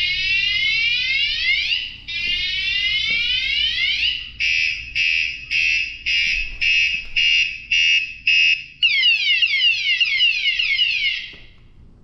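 Battery-powered anti-theft bike alarm sounding loudly, set off by the bike being moved: rising siren wails, then fast beeping about twice a second, then falling wails, cutting off about a second before the end.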